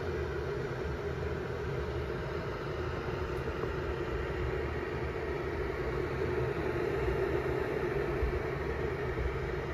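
Elite Gourmet electric kettle heating water close to the boil: a steady rushing, bubbling noise that grows slightly louder.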